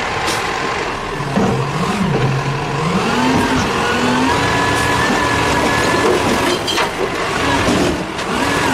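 Front-loading garbage truck with a Heil body, its engine revving and falling in pitch as the hydraulic forks raise a dumpster up over the cab to tip it into the hopper.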